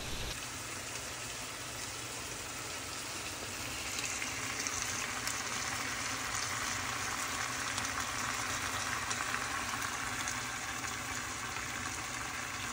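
Steady frying sizzle of chopped boneless chicken thigh pieces partially cooking in a skillet, getting a little louder a few seconds in.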